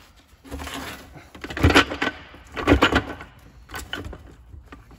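Metal clunks and clatter of gear clusters and steel selector forks being handled and settled in a VW 02M six-speed gearbox's aluminium case, with two louder knocks about a second apart near the middle.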